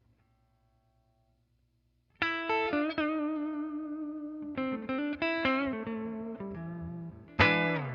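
1981 Greco Super Real EGF-1200 Les Paul–style electric guitar played clean through a Fender Princeton blackface amp. After about two seconds of faint amp hum, a single-note melodic phrase starts, with bent and wavering notes and a louder note struck near the end.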